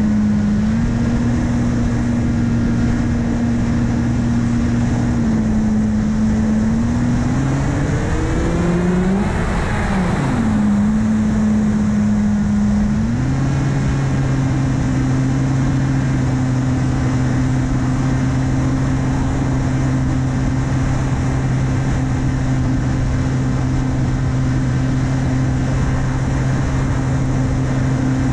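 Electric 2212 1400KV brushless motor spinning an 8x6 APC propeller, heard from on board the S800 in flight as a steady motor hum over wind rush. The pitch dips about five seconds in, swoops up and back down around ten seconds in with throttle changes, then holds steady at a higher pitch.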